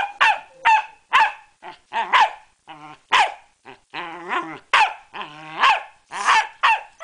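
Pembroke Welsh Corgi barking repeatedly: about ten sharp, high barks in quick succession, broken near the middle by a couple of longer growls.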